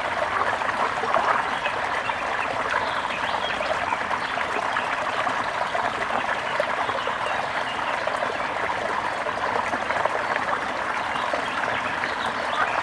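Water trickling and babbling steadily, with many short chirps scattered over it.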